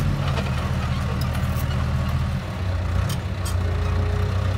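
John Deere crawler dozer's diesel engine running steadily as the dozer drives, dipping briefly about halfway through, with a few light clanks.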